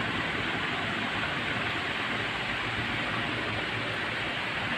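Steady rushing noise, even and unbroken, with no distinct knocks or clicks in it.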